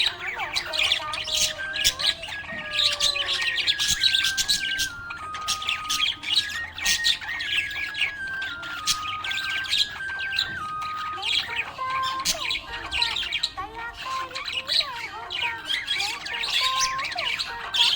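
Budgerigar chirping and chattering in quick, squeaky bursts, on and off throughout. A melody of held notes plays underneath.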